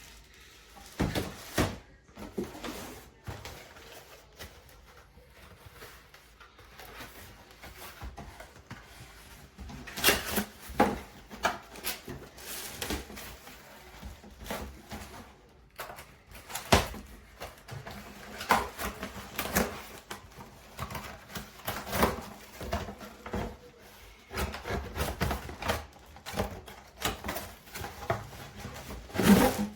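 Irregular clicks and knocks of things being handled, with no motor running.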